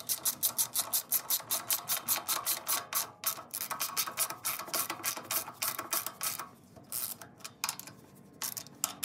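Ratchet socket wrench clicking quickly and evenly, about five or six clicks a second, as it snugs down the bolts of a tractor brake housing cover. The clicking thins out after about six seconds, leaving a few scattered clicks near the end.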